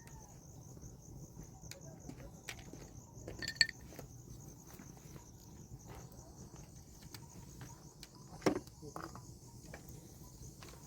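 Crickets chirring steadily in the background, with two sharp knocks: a ringing clink about three and a half seconds in and another knock about eight and a half seconds in.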